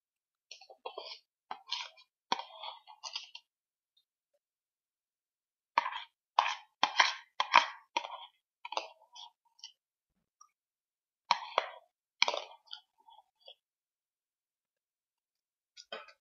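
A person eating brown sugar: bouts of short wet mouth clicks and smacks, loudest in a cluster a few seconds in.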